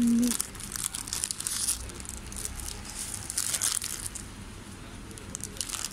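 Plastic Indomie instant-noodle packets crinkling in several irregular bursts as they are picked up and handled in a wire basket. A brief low hum sounds at the very start.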